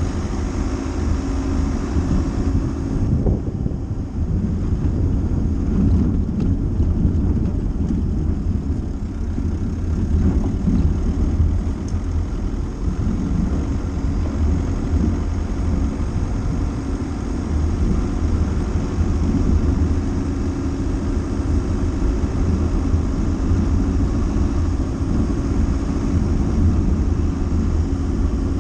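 Dacia Duster driving: steady engine and tyre noise with a constant low hum.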